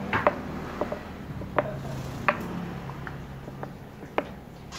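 Cut blocks of wangkal burl wood knocking against a wooden tabletop as they are handled, turned over and set down: about eight short, sharp knocks at irregular intervals over a faint low hum.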